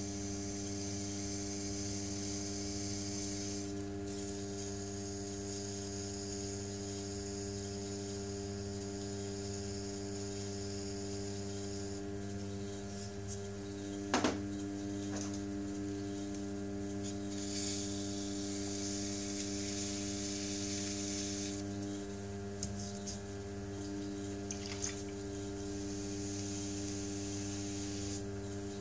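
Electric potter's wheel humming steadily as it turns, with patches of hissing scraping from a wooden tool and fingers working the wet clay dish on the wheel. A single sharp knock about halfway through.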